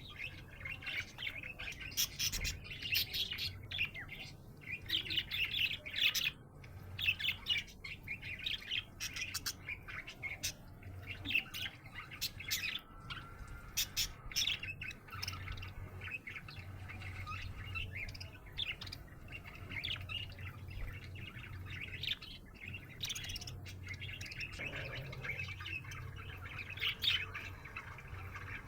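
Budgerigar chirping and warbling in quick, busy runs of short chirps and clicks, with a faint steady low hum underneath.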